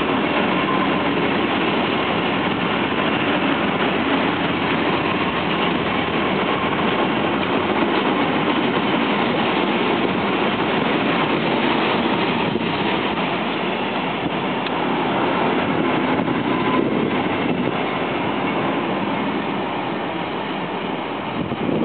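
Empty freight wagons of a Class 66-hauled train rolling past, a steady clatter and rumble of steel wheels on the rails that eases a little near the end.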